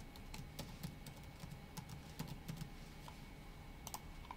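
Typing on a tablet's touchscreen keyboard: faint, irregular taps and key clicks, a dozen or so spread unevenly.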